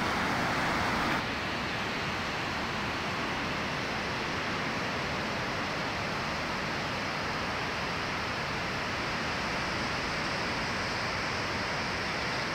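Steady rush of ocean surf breaking. About a second in it changes abruptly, becoming slightly quieter and duller, as the recording cuts to a new spot.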